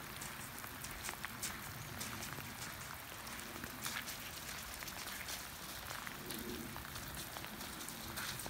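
Light rain pattering: a steady hiss with many small scattered ticks.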